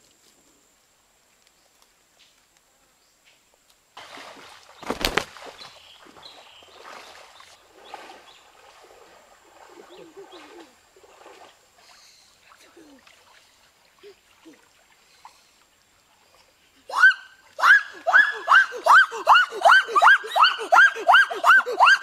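Water splashing and sloshing as people wade through a shallow river, with a sharp click a few seconds in. Near the end a man starts a loud, rapid run of short shouted calls, two or three a second and each falling in pitch, cheering over a speared fish.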